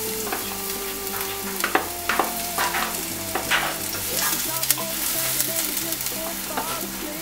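Crushed garlic sizzling in olive oil in a nonstick frying pan, with a spatula stirring and scraping against the pan.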